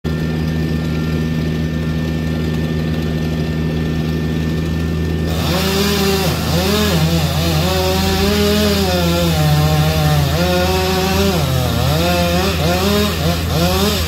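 Chainsaw running and cutting wood from about five seconds in, its pitch rising and dipping as it works. Underneath is the steady hum of an idling truck engine.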